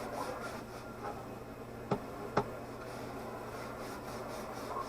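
Faint rubbing and handling noise with two sharp clicks about half a second apart, over a steady low electrical hum.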